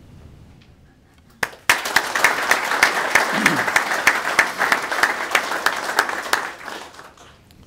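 Audience applauding, starting suddenly about one and a half seconds in and dying away near the end.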